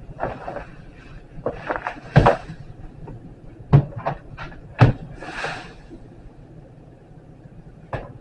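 Plastic Omega Paw Elite roll-to-clean litter box being turned and set down by hand: a run of sharp knocks and bumps, the loudest about two, four and five seconds in, with rustling and a brief swish between.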